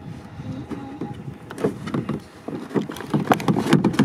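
Water splashing around a kayak as the paddle dips, in irregular bursts that get busier about one and a half seconds in.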